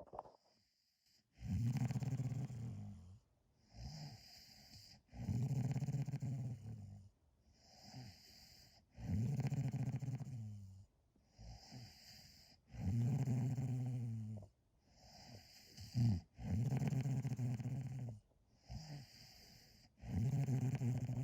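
Snoring: six long, loud snores, one about every three and a half to four seconds, each with a softer hissing breath between.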